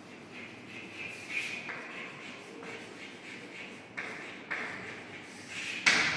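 Chalk scratching on a chalkboard in short strokes as a word is written, with a few light taps and one sharp tap of chalk on the board near the end.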